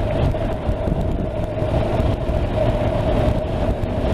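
Honda NC750X's parallel-twin engine running at a steady cruise under way, with a low, even rumble mixed with a steady rush of wind and road noise.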